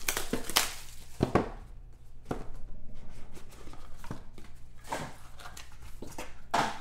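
A trading-card box being handled and opened by hand: scattered sharp taps, knocks and scrapes of cardboard and wrapping, about a handful of them spread irregularly.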